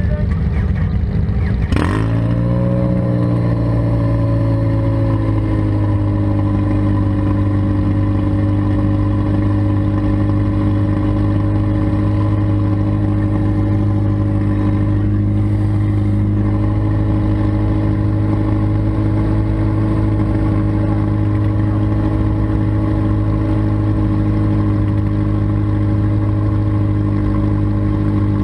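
Demolition derby car engine running. After a sharp knock about two seconds in, its pitch flares and falls back, then it holds a steady idle.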